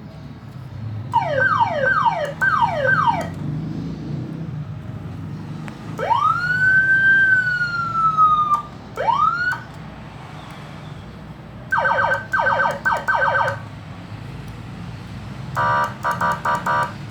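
Electronic police-escort siren module sounding several of its tones in turn, a short burst each: four quick falling whoops, then a long rising wail that sags slowly, a short upward chirp, and two rapid pulsing warbles near the end.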